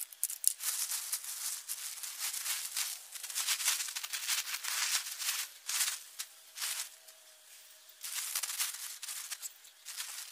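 Large black plastic sheeting rustling and crackling in irregular bursts as it is dragged, stepped on and spread out over a garden bed, with a short lull about three quarters of the way through.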